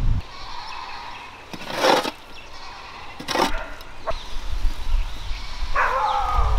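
An animal's wavering cry near the end, after two short noisy bursts earlier on.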